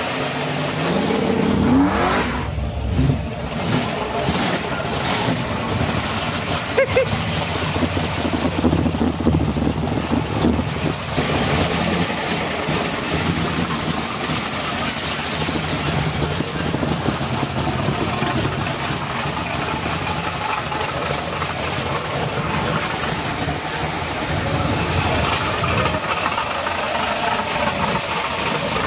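Car engine running, revved with a rising pitch about two seconds in, then idling and running steadily amid street noise.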